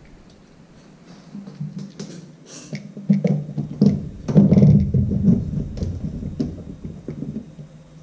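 Rocker switch panel being pressed and worked into a cut-out in an aluminium boat bench seat: scraping, rubbing and light knocks as it goes in. The hole is cut slightly small, so the panel binds in a tight fit.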